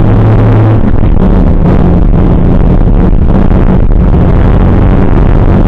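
Škoda Felicia rally car's 1.3-litre four-cylinder engine running hard at fairly steady revs, heard from inside the cabin over loud road and tyre noise.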